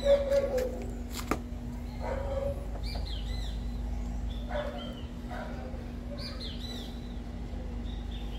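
Birds chirping in short, repeated calls every couple of seconds over a steady low hum, with a single sharp click about a second in.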